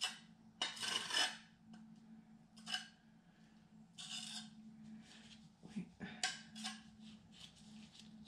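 A trowel scraping and scooping premixed tile adhesive: a series of short, irregular scrapes and rubs, the loudest about a second in.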